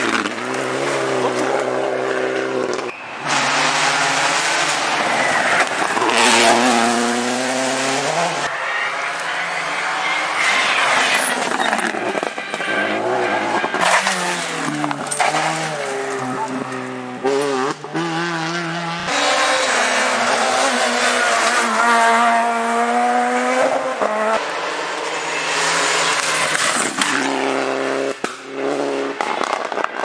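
Rally car engines at full throttle on a tarmac stage, revving hard and climbing in pitch gear after gear, each rise broken off by a quick shift, as cars pass by and pull away.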